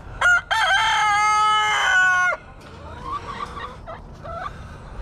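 Rooster crowing once: a short opening note, then a long held call of about two seconds that cuts off sharply. Quieter, shorter chicken calls follow.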